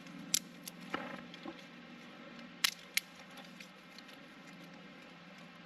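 Sharp clicks in two close pairs, one early and one about halfway through, with a short rustle between them, over a low steady background.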